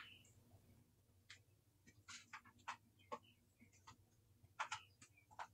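Faint, irregular soft ticks of shredded Parmesan cheese sprinkled by hand, falling onto biscuit dough and a perforated parchment liner.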